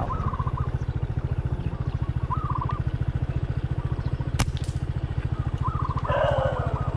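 A small engine idles with a steady, rapid low putter. Over it come a few short trilling bird calls and one sharp click about four seconds in.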